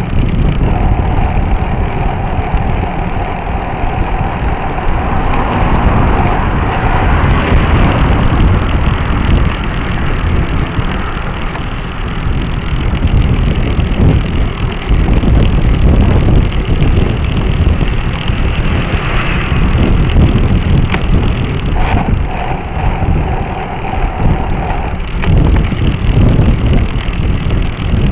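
Wind buffeting a bike-mounted action camera's microphone, mixed with bicycle tyre and drivetrain noise while riding on a paved street: a loud, uneven rumble. A steady whine sounds for the first several seconds and again about three quarters of the way through.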